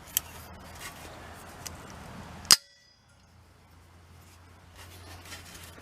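Loose steel hinge parts and bolts being handled, with light clicks, then one sharp metallic clank about two and a half seconds in that rings briefly.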